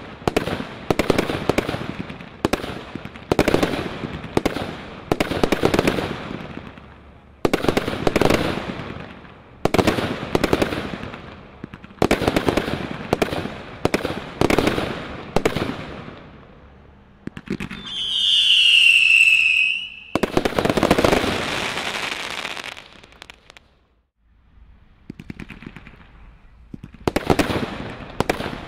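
Grand Slam GS2352GB firework cake firing shot after shot: sudden bangs with crackling tails, about one a second. Near the two-thirds mark comes a loud whistle lasting about two seconds and falling slightly in pitch, the loudest sound here. It is followed by more bursts and a brief lull before the shots resume near the end.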